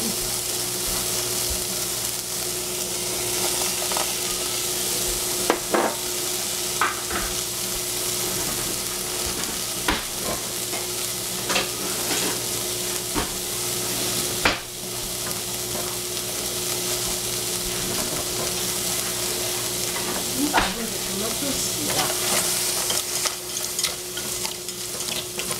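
Orange bell pepper strips sizzling in a small stainless-steel saucepan on the heat, a steady hiss with scattered sharp clicks and taps as sliced shiitake mushrooms go into the pan and the pan is stirred.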